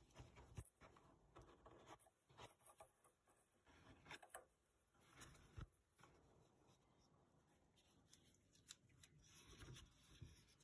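Faint handling sounds of a small cardboard box being unboxed by gloved hands: a sticker seal peeled, the flap lifted, and scattered light taps, scrapes and rustles of card, with one sharper click about five and a half seconds in.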